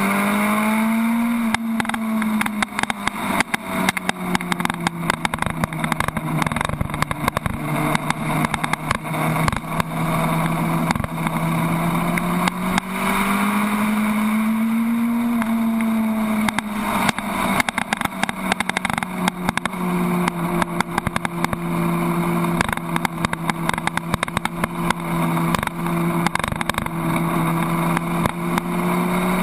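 Suzuki Hayabusa's inline-four engine running at track speed, its note rising and falling a few times with the throttle, under heavy wind buffeting on the microphone.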